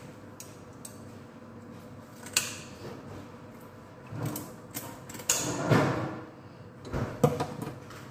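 Irregular knocks and scraping as a whole fish is handled and cleaned by hand in a kitchen sink, with sharper knocks about two and a half, five and a half and seven seconds in.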